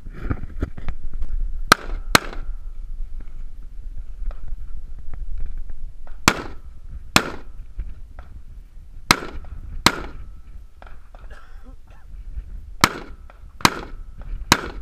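AR-15-style rifle firing nine shots, mostly in pairs about a second apart with a few seconds between pairs, over a low steady rumble.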